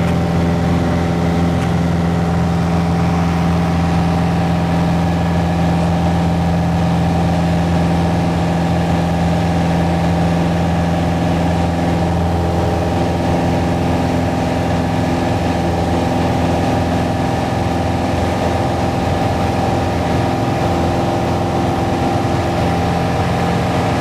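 Piper PA-28-161 Warrior's four-cylinder Lycoming engine and propeller droning steadily in flight, heard from inside the cockpit. Some of its tones shift slightly about halfway through.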